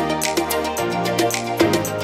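Background music with sustained chords and a steady beat.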